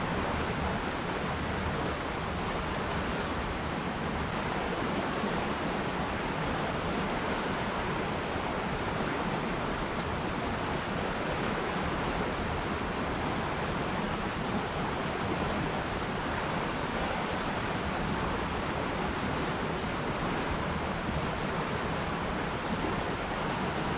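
River water flowing steadily, a constant even rush with no breaks.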